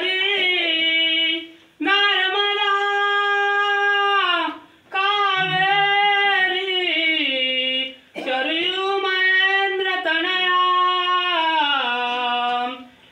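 A single unaccompanied voice singing mangalashtak wedding verses in four long, drawn-out phrases, with a short breath between each.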